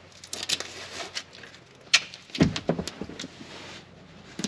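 Gorilla Tape being pulled off the roll and torn, with rustling and tapping as it is handled and pressed onto carpet: several short rasps and taps, the sharpest about two seconds in.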